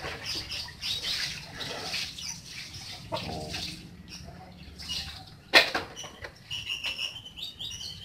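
Baby lovebird chicks in a wood-shaving nest box: shavings rustling as they are handled, a single sharp knock about halfway through, the loudest sound, then short high peeps repeated near the end.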